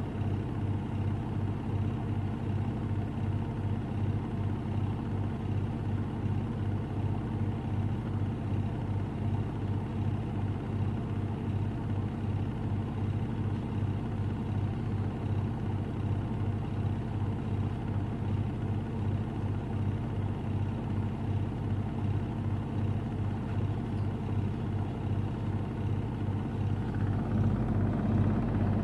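Samsung Ecobubble washing machine with a digital inverter motor spinning its drum at high speed mid-cycle. It gives a steady hum with a regular low pulsing throb, and grows a little louder near the end.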